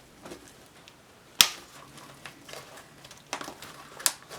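Handling noise as the pouch's stiff attachment straps are woven through the carrier's nylon webbing: faint rustling, with a few sharp clicks and snaps, the loudest about a second and a half in.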